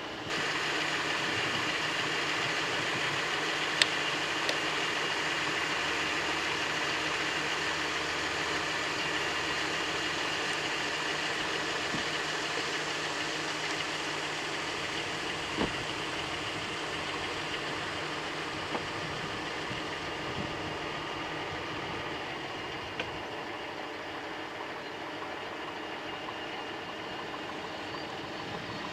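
Steady car noise from inside the cabin, the engine and vehicle running without change, with a few short sharp clicks.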